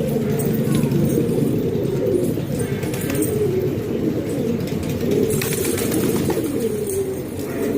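Many domestic pigeons cooing at once, a continuous overlapping chorus of low coos.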